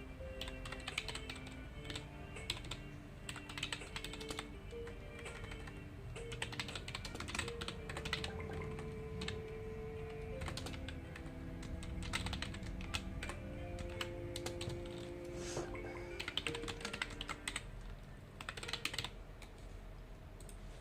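Typing on a computer keyboard: quick runs of keystrokes broken by short pauses, over soft background music.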